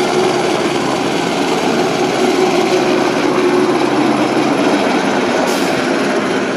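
A helicopter lifting off and climbing away, its rotor and engine running loud and steady with a constant hum.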